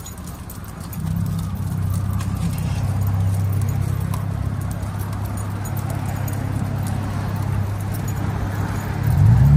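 Passing road traffic: a steady low engine drone that swells about a second in, then near the end a vehicle engine accelerating with rising pitch. Faint clicking of the walking dogs' claws and leash hardware underneath.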